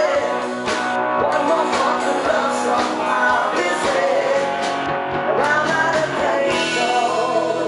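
Rock-style band music with guitar, a steady beat and a wavering singing or lead melody line.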